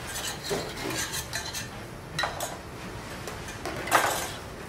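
Metal utensils clinking and scraping against stainless steel saucepans on a gas range, in a few short clatters with a sharper clank about four seconds in, over a steady background hiss.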